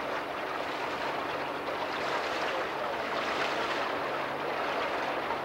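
Steady rush of water and wind noise from a motor launch under way, with the low, steady hum of its outboard engine underneath.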